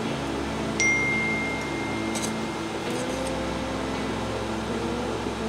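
Fish hooks and metal powder being dropped into a steel canister: about a second in, a sharp ping that rings on at one clear pitch for about two seconds, then a couple of faint ticks, over a steady background hum.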